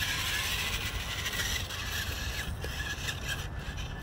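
Toy radio-controlled monster truck driving across dirt: its small electric motor and plastic gears give a steady high whine.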